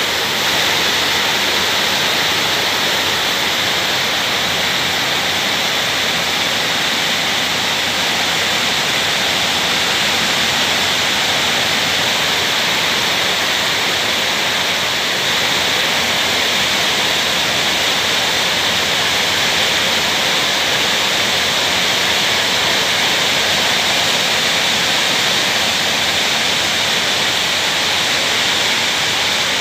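Steady rain: a loud, even hiss that doesn't let up.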